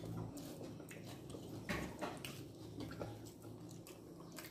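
Quiet eating sounds: chewing, and fingers mixing rice and fried fish on plates, with a few soft clicks and taps.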